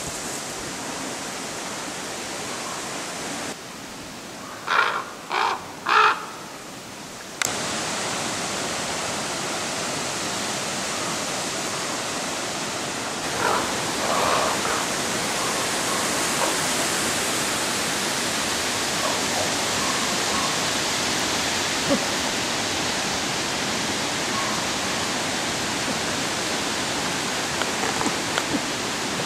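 A crow-family bird calling three loud, harsh calls about half a second apart, roughly five seconds in. Around them a steady hiss, which grows louder after the calls and carries a few faint scattered calls.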